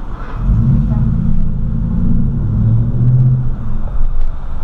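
Ford F-150's engine accelerating away from a standstill, heard from inside the cab; its pitch climbs and then drops back near the end as it shifts up.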